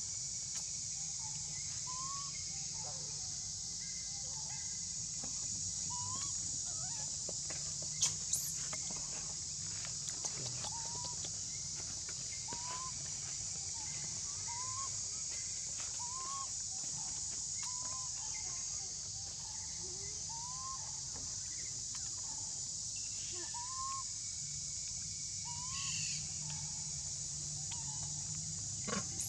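Outdoor ambience: a steady high hiss runs throughout, while a short, arched animal call repeats about every one and a half to two seconds. A couple of sharp clicks come about eight seconds in.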